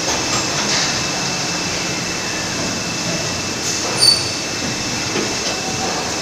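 Steady mechanical din of pad printing machines running in a robot-tended work cell, with a constant thin high whine. One sharp metallic click rings out about four seconds in.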